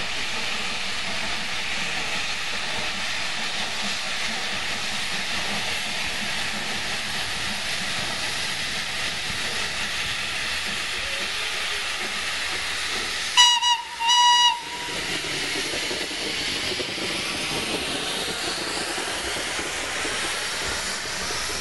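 FS Class 625 steam locomotive hissing steadily as it pulls its train past, sounding two short blasts on its steam whistle about two-thirds of the way through.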